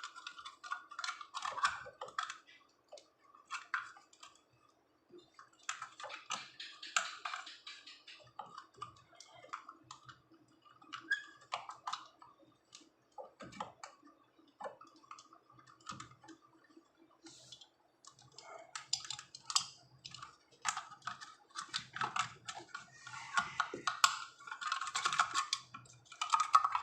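Irregular light clicks and taps of small parts and tools being handled, typical of refitting a fridge's relay and overload cover, over a faint steady hum.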